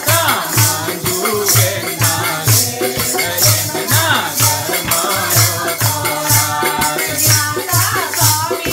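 A group of people singing a devotional song together, keeping time with hand-clapping and rattling handheld clappers on a steady beat of about two strokes a second.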